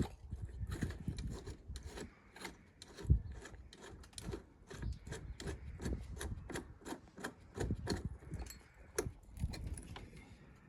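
Quick, irregular scraping and knocking strokes from hand-tool work on a lawnmower and its removed blade, about two to four a second, with one sharper knock about three seconds in.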